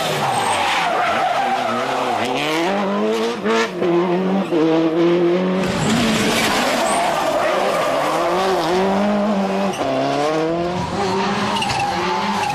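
Subaru Impreza WRC rally car's turbocharged flat-four engine pulling hard through the gears on a tarmac stage. The engine note climbs and drops back with each gear change, several times over, and a fresh run of rising revs starts about halfway through.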